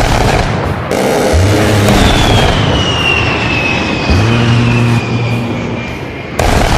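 Jet aircraft flyby sound effect over loud music: a high engine whine falls slowly in pitch across a few seconds, with deep bass notes underneath.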